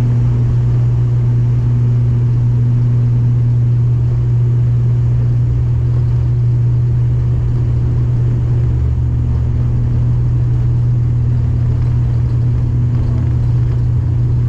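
ATR twin-turboprop airliner running at take-off power: a loud, steady propeller drone with a strong low hum over rumble, holding even throughout.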